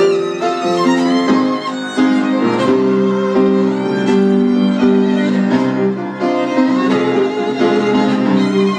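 Live violin played with the bow, a busy run of sustained and quick notes with vibrato, over piano accompaniment.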